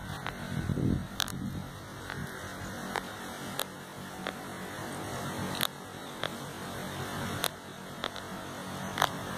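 1600 kVA 11 kV distribution transformer humming steadily, with irregular sharp ticks about once a second.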